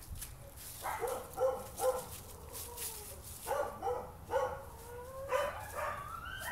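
A child's voice making dog- or wolf-like animal noises: a series of short yips and barks, then a longer rising howl near the end.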